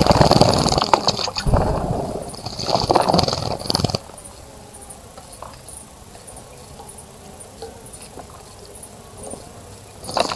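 Water splashing in a bird bath as a bird bathes, a busy patter of splashes that stops about four seconds in.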